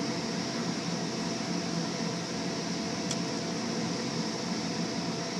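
Steady drone of the electric blower fan that keeps an inflatable bounce house inflated, with one short tick about three seconds in.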